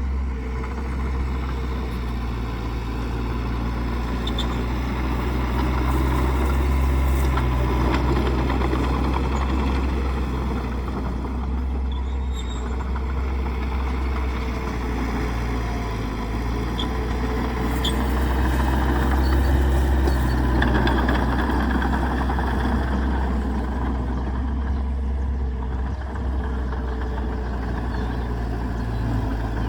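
A bulldozer's heavy diesel engine running steadily, growing louder twice: about a quarter of the way in and again about two-thirds of the way in.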